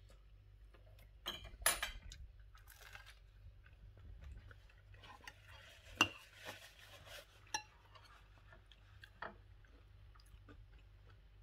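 Cutlery clinking and scraping on a plate during a meal, in scattered strokes, with the sharpest clinks about a second and a half in and about six seconds in.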